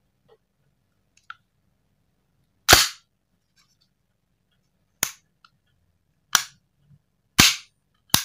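Five sharp, loud metallic clacks from a KJ Works KP02 Sig Sauer P229 full-metal gas-blowback airsoft pistol being worked by hand with no gas magazine fitted, its slide and hammer snapping. The first clack comes about three seconds in and the rest follow about a second apart in the second half.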